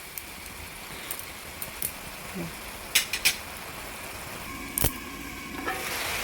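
Chicken frying in a pan with spices, a soft steady sizzle, with a utensil clinking against the pan a few times; the sizzle gets louder near the end.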